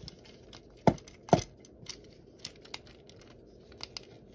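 Clicks and snaps of plastic parts on a Power of the Primes Moonracer Transformers figure being moved by hand into its combiner arm mode. Two sharper clicks come about a second in, followed by a few lighter ticks.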